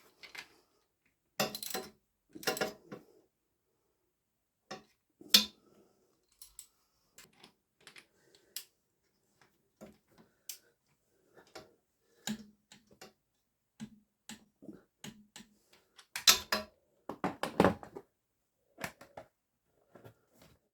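Hand tools and metal parts being handled, clinking and knocking at irregular intervals. There are louder clatters about one and a half, two and a half and five seconds in, and a cluster of them near the end.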